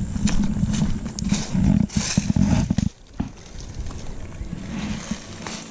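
A hiker's footsteps on dry grass and leaf litter with trekking poles, over a low rumble. The walking stops about three seconds in, leaving quieter rustling and a few light clicks.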